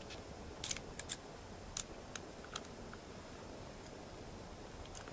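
Sharp metallic clicks and clinks of lock picks and a tension wrench being handled at a padlock, about seven in the first three seconds, the loudest about a second in.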